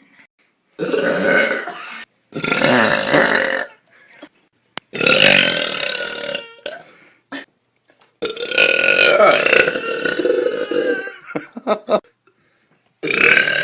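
A girl burping loudly, several long burps one after another with silent gaps between them. The longest burp lasts about three seconds, a few short ones follow, and another begins near the end.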